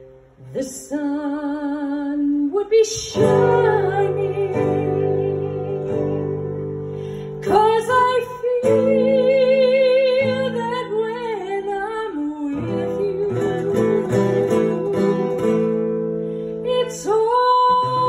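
A woman singing held notes with vibrato, accompanied by an acoustic guitar, in a live performance.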